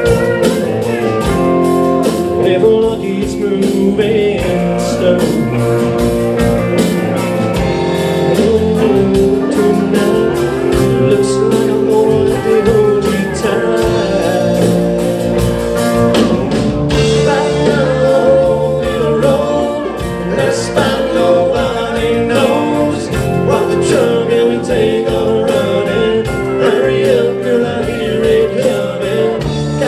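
Live bar band playing an instrumental break of a blues-rock song: a lead line over bass and a steady drum beat.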